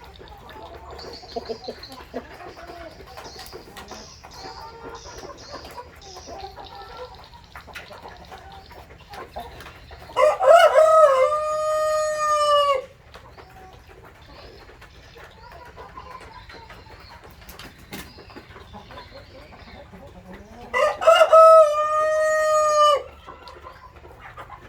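Brahma rooster crowing twice, each crow about two and a half seconds long and ten seconds apart, with hens clucking softly in between.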